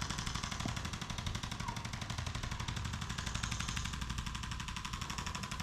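Handheld electric percussion instrument hammering rapidly and evenly against the patient's body, a fast steady stream of taps over a low motor hum.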